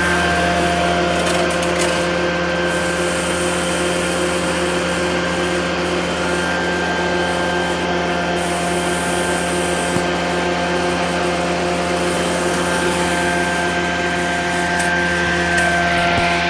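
Prochem Performer truck-mount carpet cleaning machine's Nissan engine and vacuum blower running steadily at a constant speed, a loud even drone with a steady hum.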